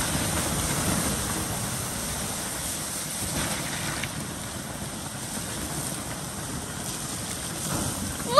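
Water poured from a plastic bucket onto hot campfire coals, hissing steadily as it turns to steam, slowly fading as the fire is put out.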